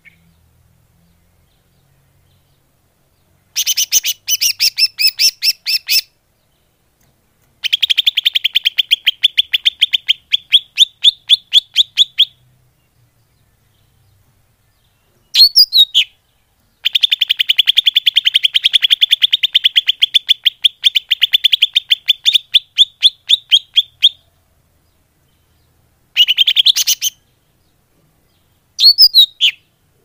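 Green leafbird (cucak ijo) lure call. Rapid runs of sharp, high chattering notes, about eight a second, come in several bursts of one to seven seconds with short silent gaps between them.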